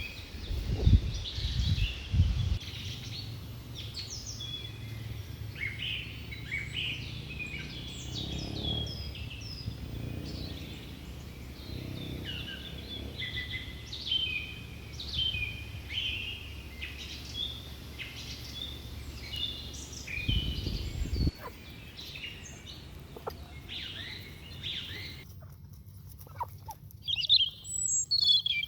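Birds chirping: many short, high chirps in quick succession, with low rumbles in the first couple of seconds and again about twenty seconds in. Near the end the background noise drops away suddenly and a few louder, higher chirps follow.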